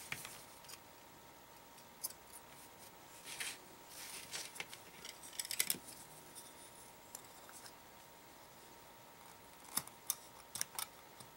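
Scissors snipping off excess string: a few quiet, scattered snips and clicks, with a quick cluster of them near the end.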